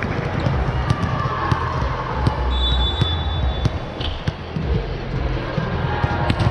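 Volleyball being played in a gym: scattered sharp knocks of the ball on hands and the hard floor over steady hall noise, with a high squeak about two and a half seconds in.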